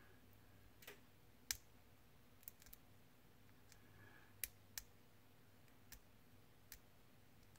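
Hobby flush cutters snipping sprue gates off a plastic model part: about eight sharp clicks at uneven intervals, the loudest about a second and a half in.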